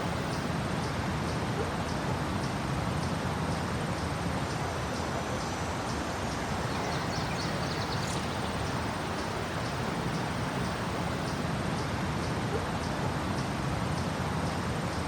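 Steady rumble of nearby street traffic under a park ambience, with small birds chirping over it in short, evenly repeated high notes. A brief flurry of bird calls comes about seven seconds in.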